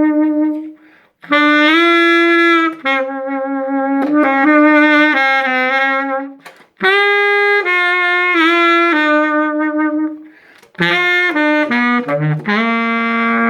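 Baritone saxophone played through a 3D-printed mouthpiece: a slow melody of long held notes in three phrases, with short pauses for breath between them.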